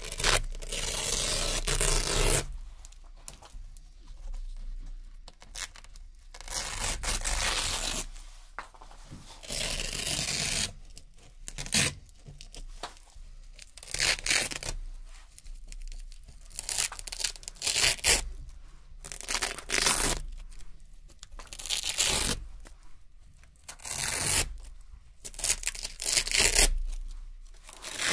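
Small Velcro (hook-and-loop) strips peeled off a board one after another: about a dozen short, crisp ripping sounds with brief pauses between.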